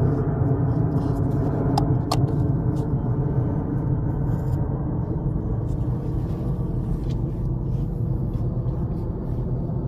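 A steady low rumble, with a couple of light clicks about two seconds in.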